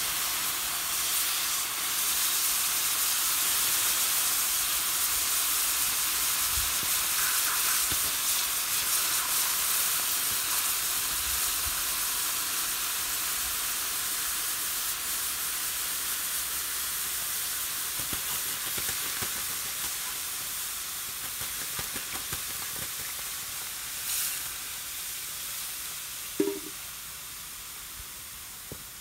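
Steam hissing and sizzling off red-hot copper and firebricks, a steady hiss that comes on suddenly and slowly fades away. A short clink near the end.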